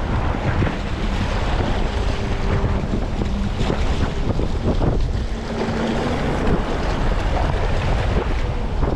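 Steady wind buffeting the microphone, a low rushing rumble, with open water beneath it.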